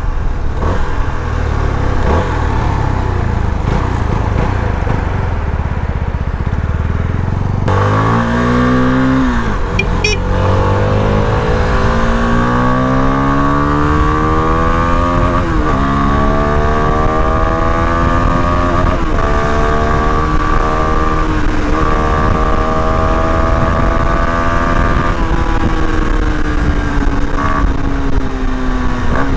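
CFMoto NK250's single-cylinder engine under hard acceleration on the road, under wind rush at first. About eight seconds in the engine note comes up and climbs in pitch, then drops back at each of several upshifts. Near the end it eases off and the pitch sinks slowly.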